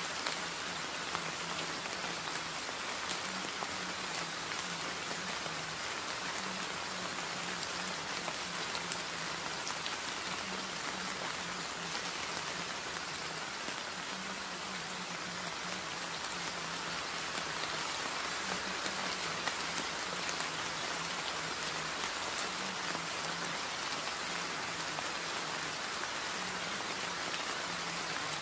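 Steady rain falling, an even hiss with fine drop patter.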